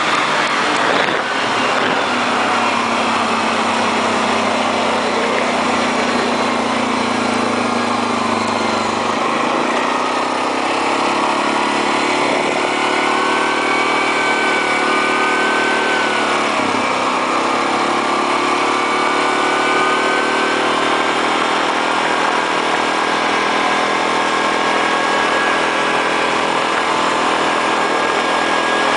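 Yamaha Grizzly 700 ATV's single-cylinder engine running steadily while riding along a road. Its pitch shifts a few times with the throttle, dipping briefly and climbing again a little past halfway.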